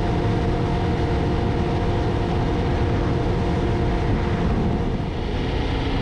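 Steady engine and road noise of a vehicle cruising at a constant speed on a paved road, with an even hum that does not change.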